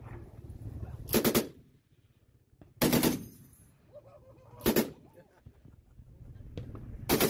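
Browning M2 .50-calibre heavy machine gun firing four short bursts of a few rounds each, spaced roughly one and a half to two seconds apart.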